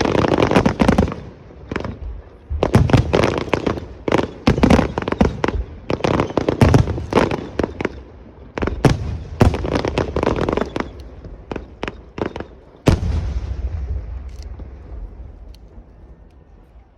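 Aerial firework shells bursting overhead in quick succession, a steady run of sharp bangs and crackles. About thirteen seconds in comes one large boom whose rumble slowly fades away.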